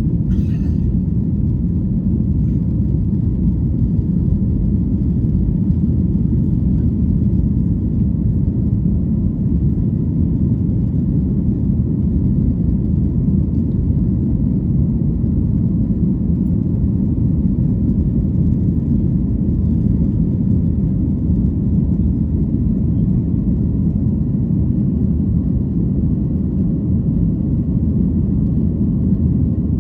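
Airplane cabin noise: the aircraft's engines heard from inside as a steady, unbroken low rumble.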